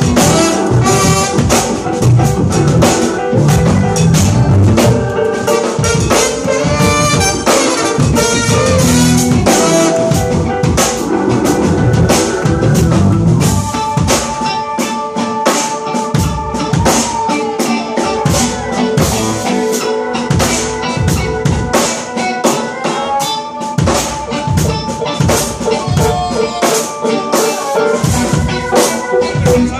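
Live jazz-funk band playing: a drum kit beat under electric bass, keyboard, guitar and saxophone and trumpet lines.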